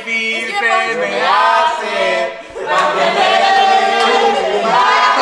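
A group of young voices singing along together loudly, several people at once, with a brief drop about two and a half seconds in.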